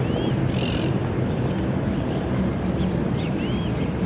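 Low, steady droning rumble with a few faint steady tones in it, which the recordist takes for 'The Hum', at a rising stage. A few short bird chirps sound above it, one near the start and one about three seconds in.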